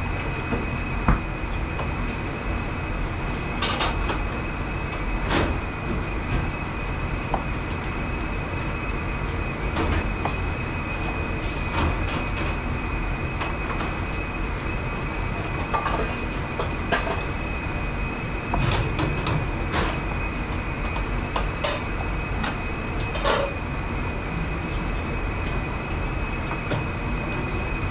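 A steady machinery hum with a thin high whine fills the kitchen. Over it come irregular knife taps on a plastic cutting board and small clinks of utensils as peeled tomatoes are cut into chunks.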